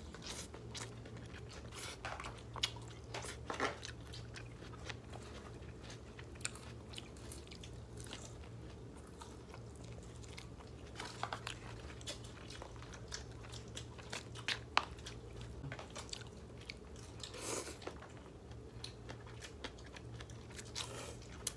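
Close-up eating sounds: chewing and biting on grilled meat and rice vermicelli noodles, with many small scattered clicks and crunches. A steady low hum runs underneath.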